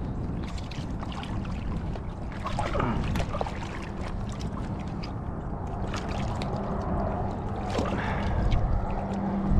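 A small American alligator thrashing at the end of a crab line in shallow water, splashing in spurts, over a steady rumble of wind on the microphone.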